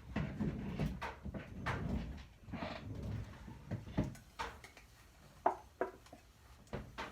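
Rummaging and handling noise as things are moved about: shuffling with scattered knocks through the first half, then a few short sharp clicks and knocks in the quieter second half.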